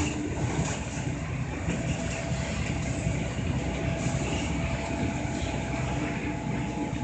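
City route bus under way, heard from inside the cabin: steady engine and road noise, with a faint steady whine.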